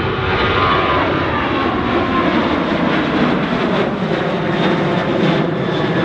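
Ryanair Boeing 737-800's twin CFM56 jet engines at climb power as it climbs away after takeoff: a loud, steady jet noise with a whine that drops slightly in pitch in the first second or so.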